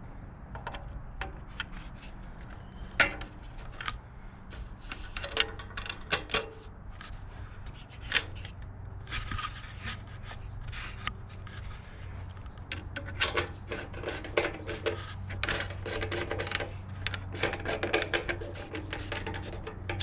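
Parts being handled and fitted during motorcycle reassembly: intermittent rubbing and scraping with occasional sharp clicks and knocks, over a steady low hum.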